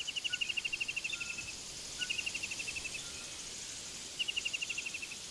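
Forest ambience: a rapid, even chirping trill at one pitch sounds three times, each for about a second, over a faint high steady insect buzz.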